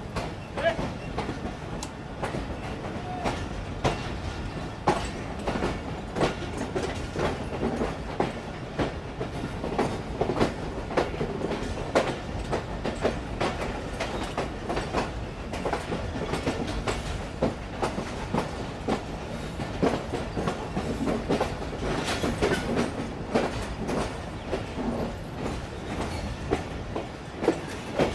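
Pakistan Railways Awam Express passenger coach running along the track: a steady rolling rumble with frequent, irregular wheel clacks over rail joints.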